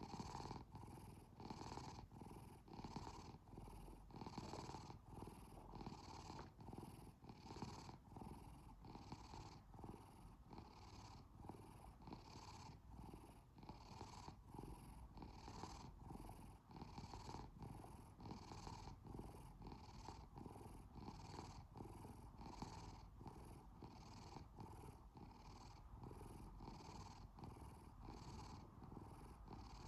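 A tired domestic cat purring steadily, the purr swelling and fading with each breath a little more than once a second.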